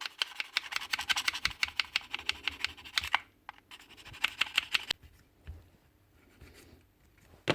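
A small file scraping the carbon brushes and brush holder of a Bosch GWS9-115 angle grinder in quick, short strokes for about three seconds, then a shorter burst of strokes, a light skim to tidy up brushes that had been sticking.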